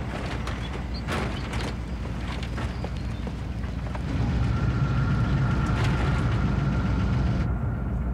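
An old truck's engine running with a low, pulsing rumble, and knocks and creaks from the body as it drives over rough ground. The engine gets louder about four seconds in.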